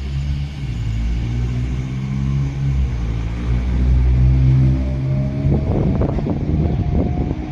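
Electric train running through the station: a heavy low rumble, then from about five seconds in a quick run of wheel clacks over rail joints with a faint rising motor whine.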